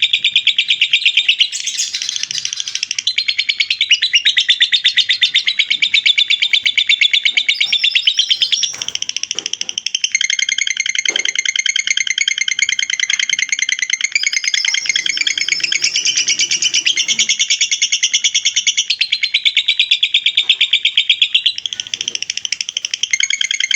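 Lovebird's 'ngekek' song: a long, unbroken run of fast, high chattering trills that changes pattern every few seconds without a pause.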